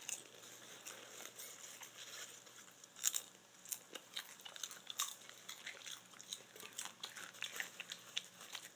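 Someone chewing popcorn close to the microphone: faint, irregular crunches and crackles, with a couple of louder crunches about three and five seconds in.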